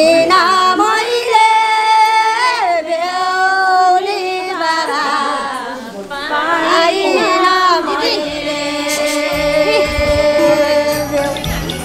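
A woman singing a slow melodic song, one voice line with long held, wavering notes. From about eight seconds in, a low pulsing beat joins beneath the voice.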